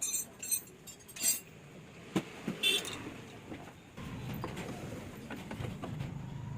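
Small metal engine parts and tools clinking and tapping against each other: a quick run of light chinks at first, then a couple of knocks, one with a brief ring, followed by low handling noise.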